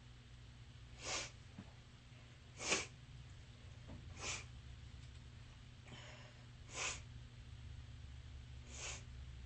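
A sniffly person sneezing repeatedly: five short, sharp bursts about one and a half to two seconds apart, the first about a second in and the second the loudest. A steady low electrical hum runs underneath.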